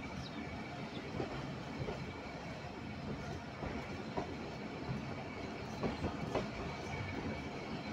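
Pakistan Railways passenger coaches rolling at low speed while pulling out of a station: a steady rumble of steel wheels on the rails with scattered clicks and knocks.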